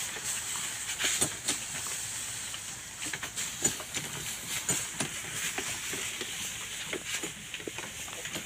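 Backpack sprayer misting water onto hanging mushroom bags: a steady high hiss with irregular small clicks and taps, done to keep the bags wet and cool in summer heat.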